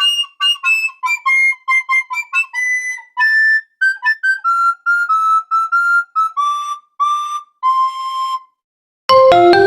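A solo melody of short, separate high notes on a whistle- or flute-like wind instrument, stopping about eight and a half seconds in. After a short gap, louder, fuller music with lower notes begins.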